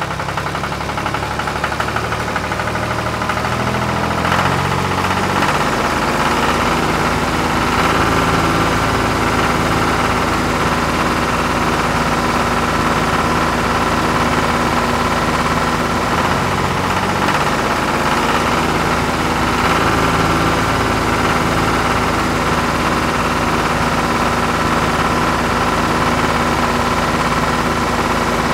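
Tractor engine idling steadily with a low, even chugging, getting a little louder over the first few seconds.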